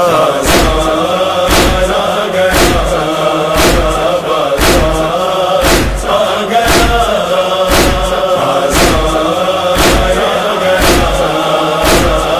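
A crowd of male mourners chanting a noha refrain in chorus, kept in time by collective matam: a heavy hand-on-chest slap about once a second.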